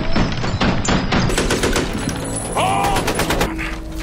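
Rapid automatic gunfire, many shots in quick succession, that thins out about three and a half seconds in.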